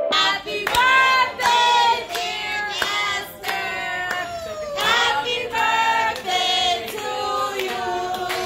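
Several voices singing or chanting together, with hand claps.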